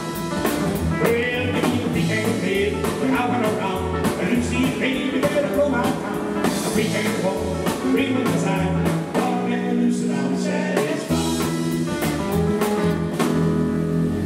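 Rock 'n' roll band playing live: electric lead guitar over acoustic rhythm guitar, double bass and drums.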